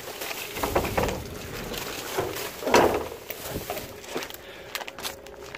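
Someone rummaging in a metal dumpster: irregular rustling of trash and scattered knocks against the bin, with a louder scrape or rustle nearly three seconds in.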